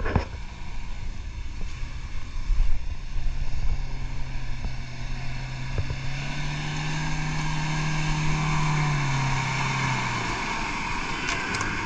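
Toyota Hilux pickup's engine running as it drives slowly up a rough grassy track and past, the hum rising a little in pitch and growing louder, then dropping away about ten seconds in. A hiss of tyres and brushing grass builds with it.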